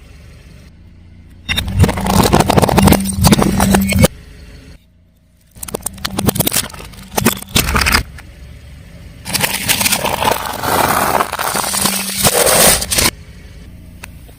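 A car tyre rolling over and crushing brittle objects: three loud stretches of dense crackling, snapping and crunching over a low engine hum, each starting and stopping abruptly, with quieter gaps between.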